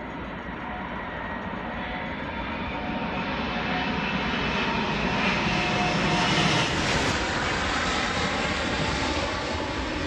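Airbus A380 jet airliner on landing approach, its four engines running with a whine, growing steadily louder as it nears.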